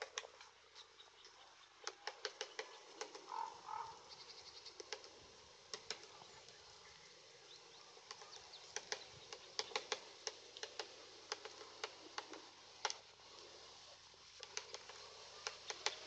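Male great spotted woodpecker pecking at tree bark with its bill while foraging: irregular sharp taps, sometimes in quick runs, not a drumming roll. A short two-note sound about three seconds in.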